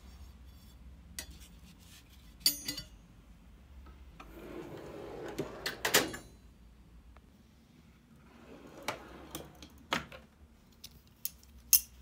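Steel tool-chest drawers being worked: a drawer of spanners slides shut and lands with a clunk about halfway through, then another drawer is slid open, with scattered clicks and clinks of metal tools in the trays.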